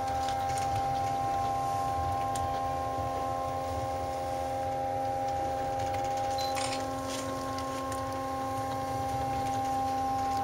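Montreal Tower funicular cabin in motion: a steady low rumble under a set of steady whining tones, which shift slightly about six and a half seconds in, with a few faint clicks.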